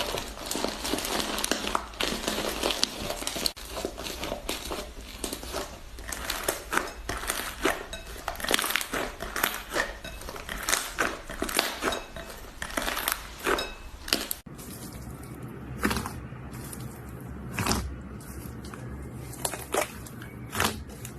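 Slime being played with by hand: a dense run of crackling, crinkling clicks and pops. About 14 seconds in the background drops away and the pops come sparser and more separate.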